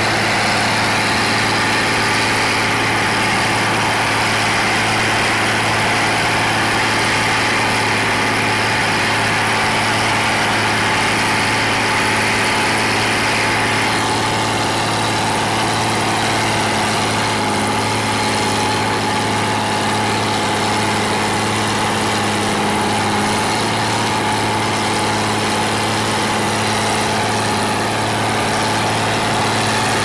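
Diesel engine of a heavy Kirovets articulated tractor running steadily at a constant pitch with no revving, its upper hiss easing a little about halfway through.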